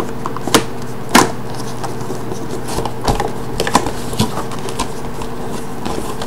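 Cardboard mouse box being handled and opened from its bottom end: a few sharp taps and clicks, the loudest about a second in, over a steady low hum.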